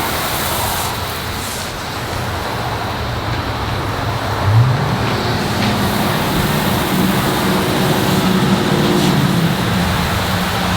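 Car-wash pressure-wand spray hissing steadily, with a vehicle engine running close by; the engine's pitch rises about four seconds in and then holds.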